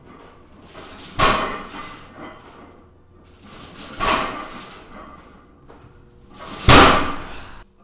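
Repeated barbell deadlift reps: the loaded bar's iron plates thud onto the floor three times, about two and a half seconds apart, the last the loudest, each landing mixed with a grunt from the lifter.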